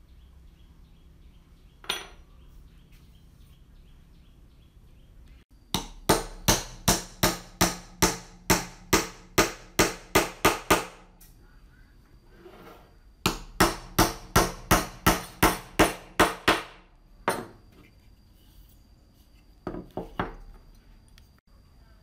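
Claw hammer driving small nails to fix a strip onto a wooden hand-plane body. It strikes in two quick, even runs of about a dozen blows each, about three a second, with a single tap before them and a couple of taps near the end.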